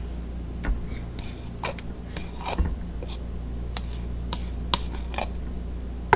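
A metal spoon clicking and scraping against a clear plastic tub as coleslaw is scooped out, with a sharp little knock roughly every second.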